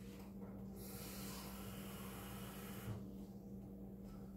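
Faint hiss of water running from a kitchen tap for about two seconds, filling a measuring cup with half a cup of water.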